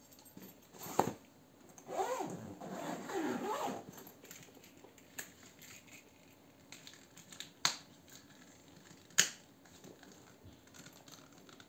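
Handling a leather laptop bag's shoulder strap and metal clip: a click, then rubbing and squeaky scraping for a couple of seconds. Later come two sharp clicks as the snap fasteners on the leather handle holder are pressed shut.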